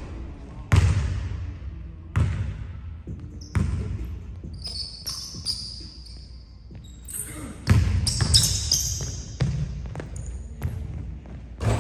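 Basketball bouncing on a hardwood gym floor: a few slow bounces over a second apart at first, then quicker dribbling from about two-thirds in. Sneakers squeak on the wood in between.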